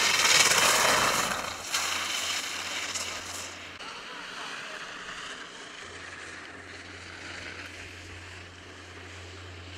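A vehicle going past, loudest in the first two seconds and then fading away, over a low on-and-off hum.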